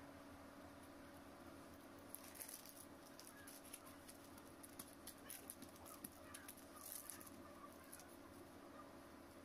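Faint crinkling and rustling of a plastic sheet and disposable gloves as the rice kibbeh is folded and pressed, in short scattered crackles from about two seconds in until near the end, over a low steady hum.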